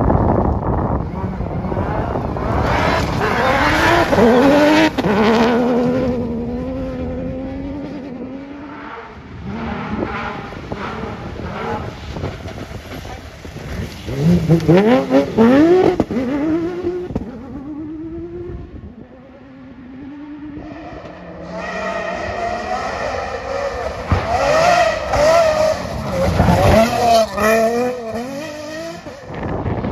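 Off-road rally cars driving hard at speed, engines revving up and dropping back through gear changes; the engine noise swells three times, near the start, about halfway through and over the last third.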